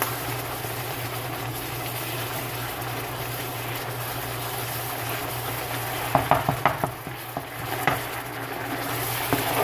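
Walnut halwa mixture of milk, sugar and khoya sizzling steadily in the pan as it cooks down. About six seconds in, a spoon scrapes and clacks against the pan in a quick run of strokes as it is stirred.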